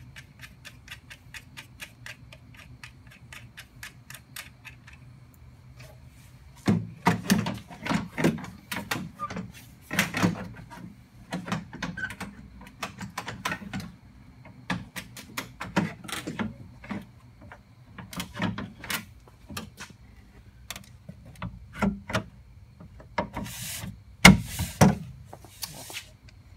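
Plastic BMW tail light assembly being handled and fitted against the car's bare metal rear body. It opens with a quick run of even small clicks, then irregular clacks and knocks of plastic on metal, with brief scraping and the loudest knock near the end.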